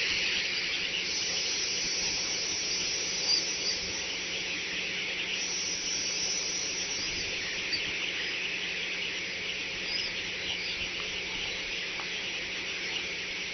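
Steady high hiss of outdoor ambience from an eagle nest camera's microphone, with a low steady hum beneath. A few faint, short high chirps are scattered through it.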